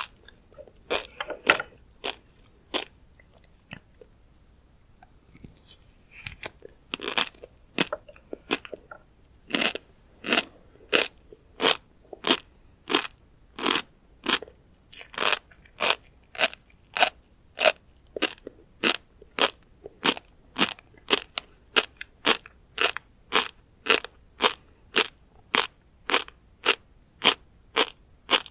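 Close-miked chewing of tobiko (flying fish roe), each chew a crunchy pop of the small eggs. A few scattered crunches and a short lull come first, then a steady run of chews at about two a second.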